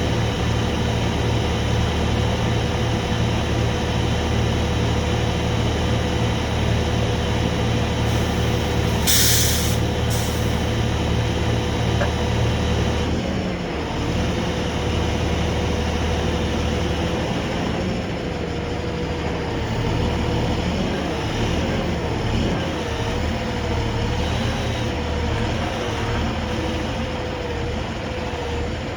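Heavy rotator tow truck's engine running steadily, with a tone that wobbles up and down in pitch in the second half. Two short hisses come about nine and ten seconds in.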